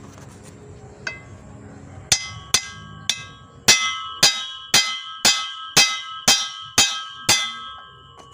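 Claw hammer striking the steel yoke of a Toyota Kijang propeller shaft to drive out its cross joint (universal joint). About a dozen sharp metallic blows, each ringing briefly, beginning about a second in and settling to about two a second from the middle on.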